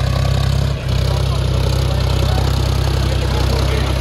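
John Deere 5050 D tractor's three-cylinder diesel engine running steadily as the tractor drives onto sandy ground, with a brief dip about a second in.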